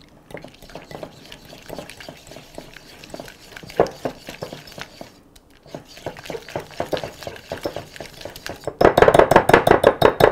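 Wire balloon whisk beating lumpy, not-quite-softened cream cheese in a ceramic bowl, the wires clicking and scraping against the bowl with each quick stroke. It is quiet at first, then turns fast and loud about nine seconds in.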